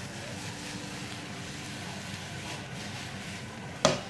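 Shrimp and bell peppers frying in a ceramic non-stick frying pan with a steady sizzle. Near the end there is one sharp knock as the pan is tossed against the cooktop.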